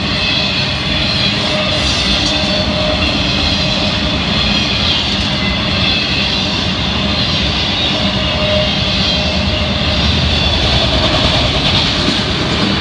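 Freight train's intermodal flatcars and autorack cars rolling past a grade crossing: a loud, steady rumble of steel wheels on rail.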